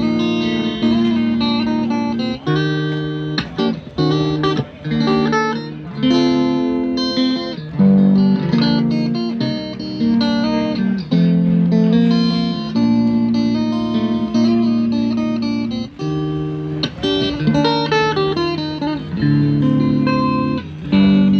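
Guitar music: plucked and strummed guitar chords ringing and changing every second or two.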